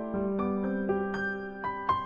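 Background music: a slow piano melody of held, overlapping notes.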